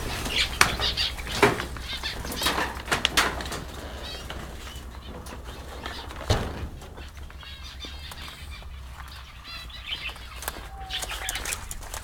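A mixed flock of small aviary finches chirping and calling, with a flurry of sharp clicks and rustles in the first few seconds. The calls then grow fewer and fainter.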